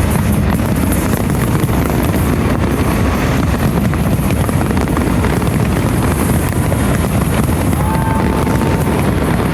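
Dense fireworks barrage: a continuous loud rumble of overlapping bursts with crackle, and wind buffeting the microphone. A short whistling tone sounds near the end.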